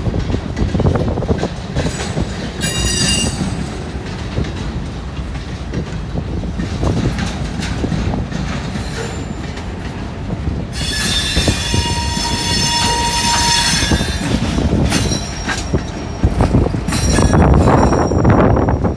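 Empty centerbeam flatcars of a freight train rolling slowly past with a low rumble of wheels on rail, and wheel squeal: briefly about three seconds in, then a longer high squeal for a few seconds past the middle. Near the end a CSX diesel locomotive passes close, its engine and wheels the loudest part.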